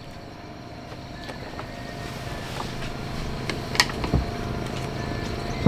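Motorcycle engine running steadily and growing gradually louder, with a few short sharp clicks about halfway through.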